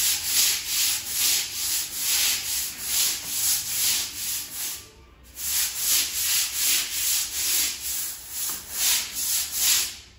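Long-handled brush scrubbing a wet, soapy ceramic tile floor in quick back-and-forth strokes, about three a second, with a brief pause about halfway through.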